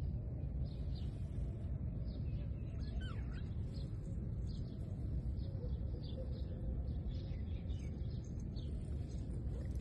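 Small birds chirping now and then, short high calls scattered throughout, over a steady low rumble.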